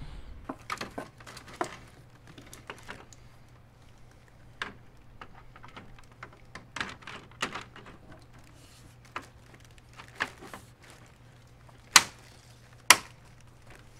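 Light plastic clicks and taps as the black RAM grille badge is handled and pressed onto the Ram 2500 grille, ending with two sharp snaps about a second apart as its clips seat.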